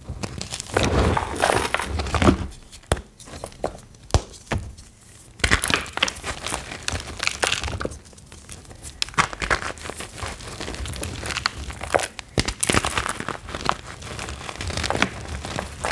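Reformed gym chalk blocks being crushed and crumbled by hand, a dense, irregular crunching and crackling that eases off briefly twice before picking up again. The blocks are extra crunchy.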